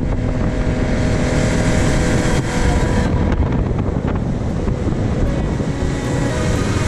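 Outboard motorboat engine running steadily at speed while towing a water skier, with wind buffeting the microphone and the rush of water from the wake.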